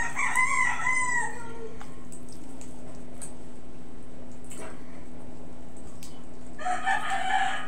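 A rooster crowing twice in the background. The first call lasts about a second at the start and the second comes near the end, each trailing off downward, over a steady low hum.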